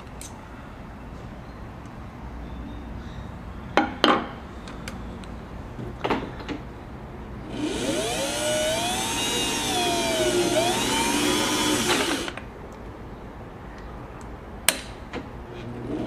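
A Singer 503A sewing machine runs for about four and a half seconds, its speed rising and falling twice, while the bobbin winder is engaged to test the pressure of its new rubber tire against the drive. Sharp metal clicks from the winder lever and mechanism come before and after.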